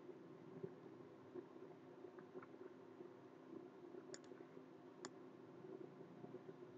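Faint computer mouse clicks over a low steady hum: a quick pair about four seconds in and a single click about a second later.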